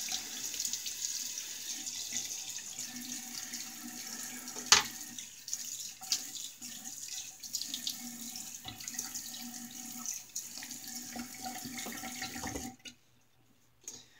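Tap water running steadily into a sink, with scattered small clicks and one sharp knock about five seconds in. The water stops abruptly near the end.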